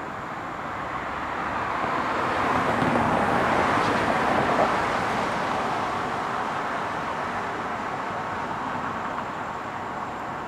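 Cars driving past on the road: tyre and engine noise swelling to a peak about four seconds in, then slowly fading away.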